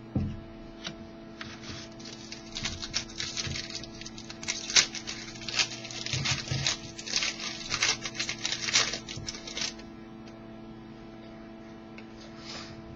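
Trading cards being handled: quick, crisp clicking and rustling as cards are slid and flipped through, stopping about ten seconds in, over a steady low electrical hum.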